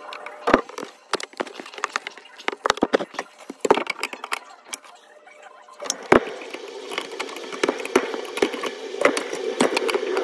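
Clicks and knocks of a Moen garbage disposal unit being handled and pushed up against its metal sink mounting ring, with sharp knocks about half a second and six seconds in. From about six seconds in, a steadier scraping rattle with many small clicks as the unit is worked against the mount, which a nearby water filter keeps from turning normally.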